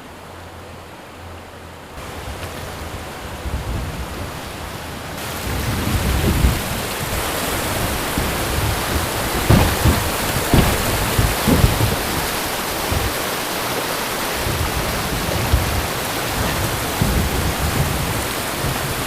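Rushing river water, a steady hiss that gets louder twice in the first few seconds, with low irregular thumps in the middle.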